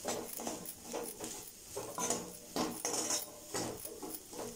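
Metal spatula scraping and knocking against a metal kadai as potato cubes are stirred and tossed, in a string of irregular strokes that are loudest around the middle.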